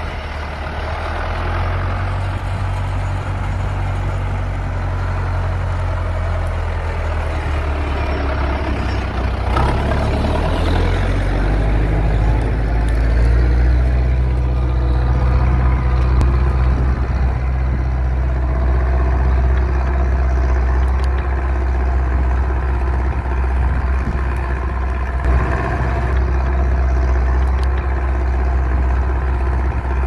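Zetor 6211 tractor's diesel engine running steadily under load while pulling a plough through the soil; the engine note rises a little about ten seconds in.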